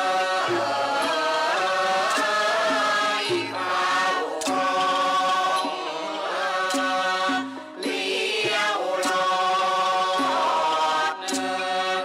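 Traditional Thai music accompanying a khon masked dance-drama: sustained, sliding melody lines over scattered drum strokes.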